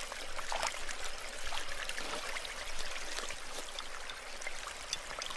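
Creek water running and trickling in a steady, even babble.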